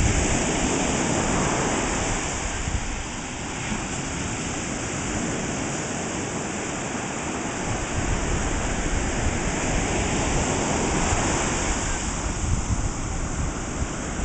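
Ocean surf: small waves breaking and washing through the shallows, a steady rushing that eases a few seconds in and swells again about halfway through.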